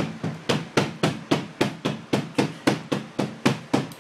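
Mallet tapping a bus window pane into its rubber gasket in quick, even strikes, about four a second. The pane is being seated on a 1963 Bristol Lodekka double-decker.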